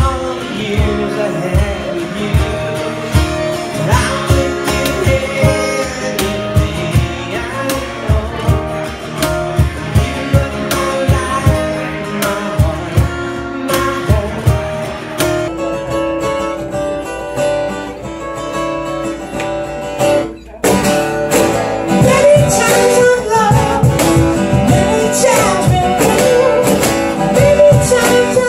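Live acoustic music recorded on a cell phone: a man sings to a strummed acoustic guitar. About twenty seconds in the song cuts off abruptly and another begins, with conga drums alongside the guitar.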